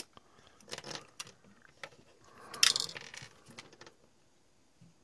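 Small plastic and metal parts of a car lighter plug clicking and rattling as they are handled and fitted together. A sharper metallic clatter comes about two and a half seconds in, as a small spring in the plug springs loose.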